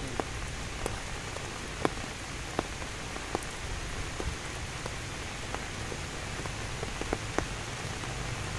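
Rain falling in a steady hiss, with single drops landing close by as scattered sharp ticks at irregular intervals.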